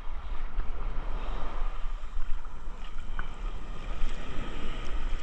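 Sea surf washing and splashing around a swimmer in breaking waves, with a heavy low wind rumble on the phone's microphone.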